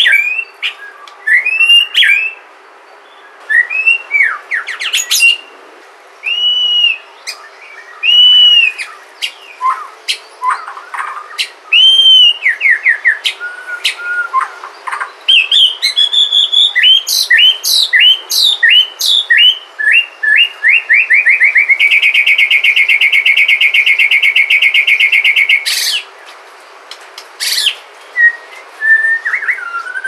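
White-rumped shama (Sumatran murai batu) singing a varied song of loud whistled phrases, arched notes, quick falling trills and sharp clicks. Later on it holds a long, fast, even trill for about four seconds.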